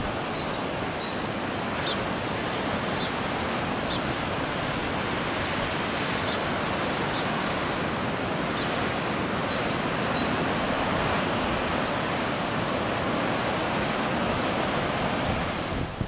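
Stormy sea: heavy surf breaking in a steady rush of noise, with wind.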